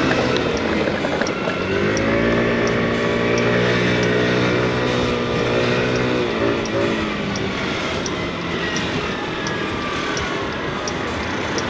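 Motor scooter engine pulling away and speeding up, its pitch rising, then easing off about six seconds in, with wind and road noise from riding. A faint tick repeats about every two-thirds of a second throughout.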